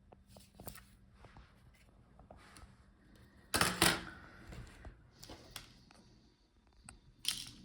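Light clicks and taps from handling small laptop parts, with a louder pair of sharp clicks about three and a half seconds in and another just before the end.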